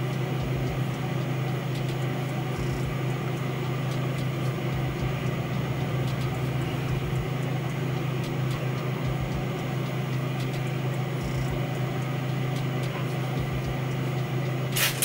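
Steady low background hum with no speech, ending in a brief burst of rustling.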